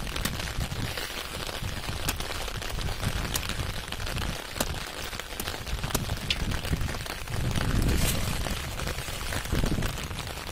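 Steady rain falling, with scattered sharp ticks of drops striking close by and a low rumble underneath.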